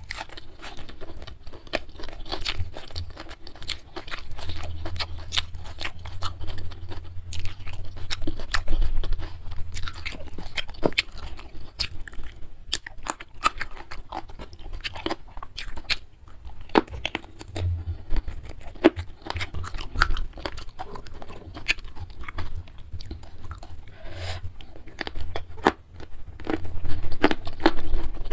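Close-miked chewing and crunching of a mouthful of rice, spicy beef and raw vegetables, with many small wet clicks and crackles coming irregularly throughout.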